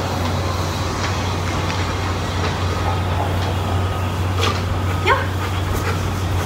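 German Shepherd puppy giving two short barks, about four and a half and five seconds in, over a steady low hum.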